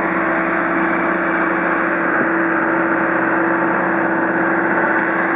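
Engine running steadily at constant speed, a loud, even drone with a strong held hum and no change in pitch.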